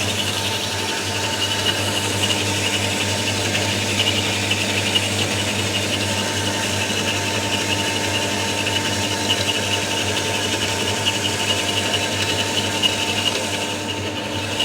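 Optimum S275 NV metal-cutting bandsaw running steadily, a continuous machine hum with a higher hiss from the moving blade.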